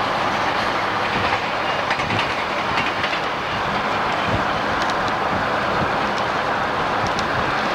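Freight train of covered hopper cars rolling past with a steady rushing noise, its wheels clicking irregularly over the rail joints.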